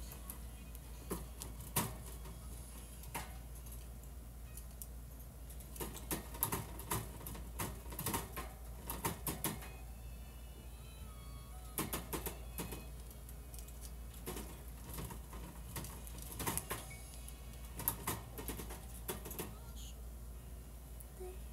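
Irregular runs of quick, sharp taps and clicks on a hard surface, coming in clusters every second or two, over a low steady hum.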